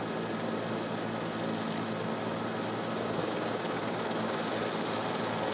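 Steady drone of a news helicopter's engine and rotor: a low hum of several steady tones under an even rushing noise.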